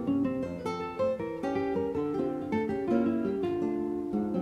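Background music: acoustic guitar playing a melody of plucked notes in quick succession.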